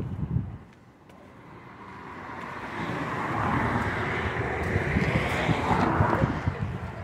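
A vehicle passing by, swelling in a steady rush over several seconds and easing off near the end, with wind buffeting the microphone.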